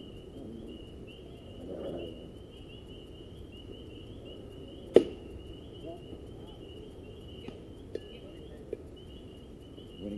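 One sharp crack of a pitched baseball striking about halfway through, over a steady pulsing chirr of insects and faint background voices.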